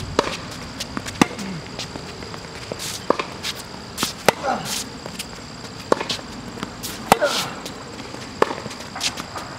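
Tennis rally on a hard court: sharp pops of a tennis ball being struck by rackets and bouncing on the court, about one every second, with short squeaks in between.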